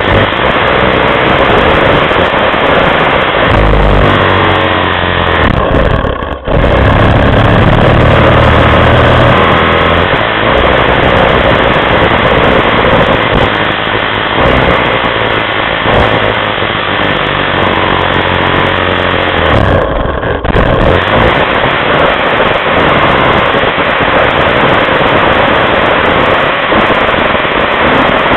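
Snowmobile engine running at speed close to the microphone. The throttle eases off briefly about six seconds in and again around twenty seconds.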